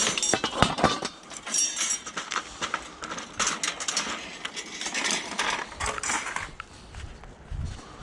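Pieces of scrap metal clanking and clattering as they are picked up and loaded: a run of irregular metallic knocks and clinks.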